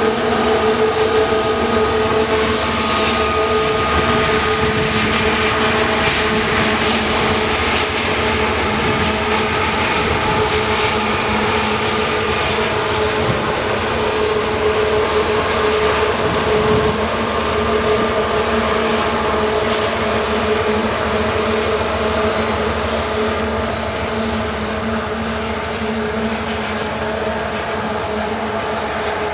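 2TE116 diesel locomotive's 16-cylinder 5D49 engines droning steadily under heavy load while shoving a freight train uphill, the sound easing a little near the end as the locomotive moves away.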